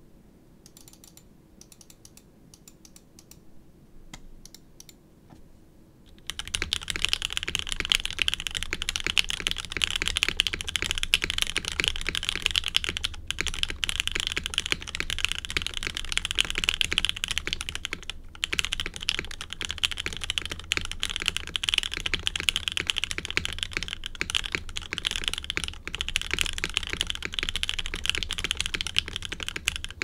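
Typing on a CMG TKL v2 mechanical keyboard with lubed Gateron Oil King linear switches in an aluminium full plate on an o-ring mount, under CRP Tulip R4 keycaps. A few faint, scattered key clicks give way about six seconds in to fast, continuous typing that is much louder.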